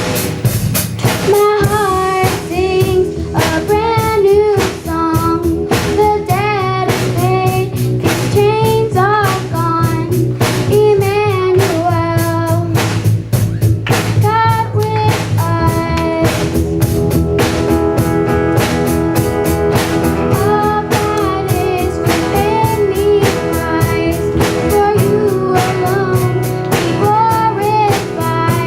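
Live band music: children and a woman singing a song over guitar, bass and drum kit with a steady beat.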